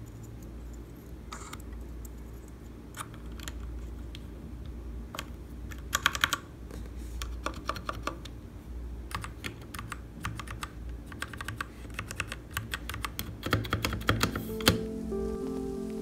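Key presses on a Royal Kludge RK61 mechanical keyboard with red switches: irregular clacking keystrokes in short runs, with the loudest quick cluster about six seconds in.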